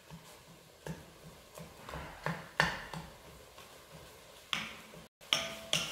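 Wooden spoon stirring ground turkey in an enamelled Dutch oven, knocking lightly against the pot about ten times at irregular intervals.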